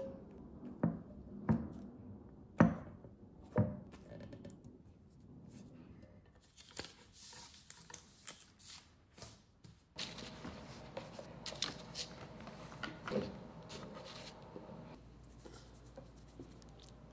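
Hand-handling sounds at a work surface: four sharp taps in the first four seconds while cocoa powder is shaken from a shaker can over white chocolate discs, then a crackling rustle of the plastic sheet and thin chocolate discs being handled and trimmed with a metal ring cutter.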